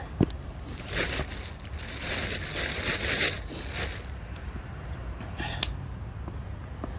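A sharp thump, then a few seconds of rustling and crunching as a person moves about and crouches on a gravel bank, with a small click later and a low steady rumble underneath.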